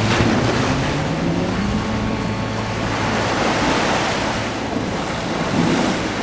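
Small ocean waves washing up a sandy beach and against a stone seawall, with wind on the microphone. A low hum that rises slowly in pitch fades out in the first half.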